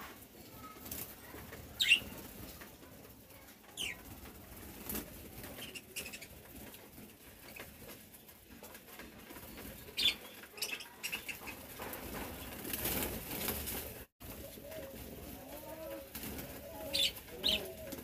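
Budgerigars at a feeding bowl: wings fluttering and rustling, with a few short, sharp high chirps, the loudest about two seconds in. Low cooing calls come in during the last few seconds.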